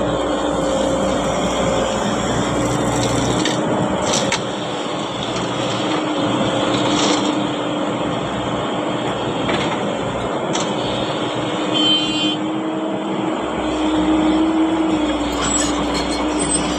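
Heavy earthmoving machinery's diesel engine running steadily, with a droning hum and a few light clicks.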